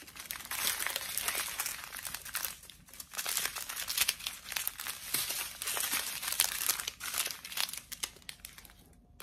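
Small clear plastic bags of diamond-painting drills crinkling as a bundle of them is grabbed and sorted by hand, in spells of dense crackling with a brief lull about three seconds in, dying down near the end.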